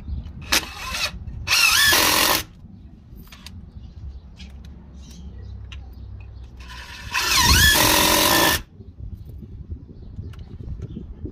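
DeWalt 18V brushless impact driver driving wood screws through a steel angle bracket into timber: a short burst about half a second in, another of about a second near two seconds in, and a longer run of about two seconds around seven seconds in. Within the runs the whine of the driver dips and rises in pitch.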